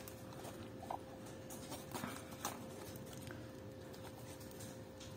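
Small cardboard box being handled and its flap opened: faint, scattered light taps and rustles.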